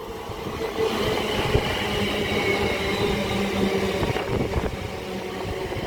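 London Northwestern Railway Class 350 electric multiple unit running through the station, its wheels on the rails mixed with a steady electric whine of several held tones. The lowest tone fades out about five seconds in.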